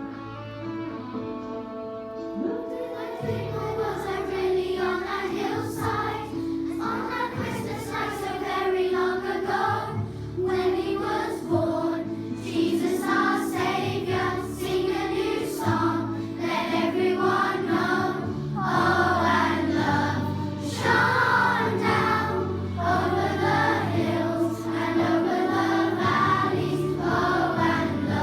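Children's school choir singing a song with instrumental accompaniment; the accompaniment plays alone for the first couple of seconds before the voices come in.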